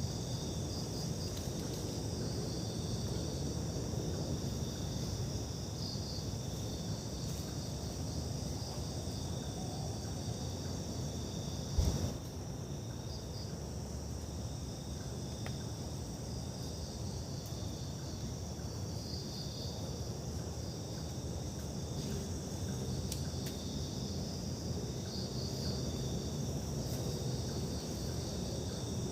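Insects, crickets among them, chirring steadily in the woods with pulsing high trills over a low rumble; a single sharp knock about twelve seconds in is the loudest sound.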